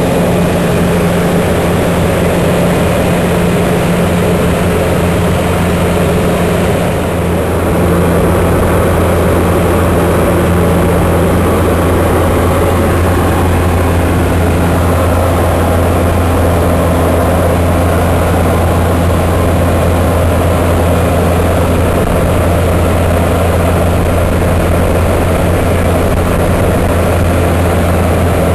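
The turboprop engine and propeller of a de Havilland Canada DHC-2 Turbo Beaver running steadily in flight: a loud, even drone with a low hum under a hiss. It dips briefly about seven seconds in, then settles slightly louder.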